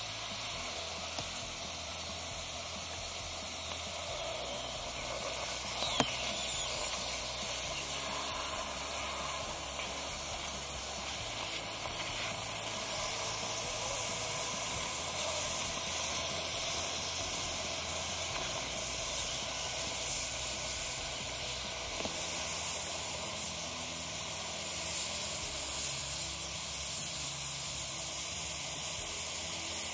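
Lithium iron phosphate (LiFePO4) RV battery venting after its cells were punctured by a 12-gauge shotgun blast, giving off a steady hiss as it pours out smoke. A single sharp click about six seconds in.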